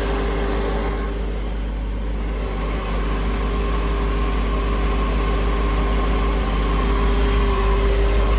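Engine driving a freshly rebuilt water pump, running steadily with a constant hum and a faint steady whine. The pump is working and pumping water.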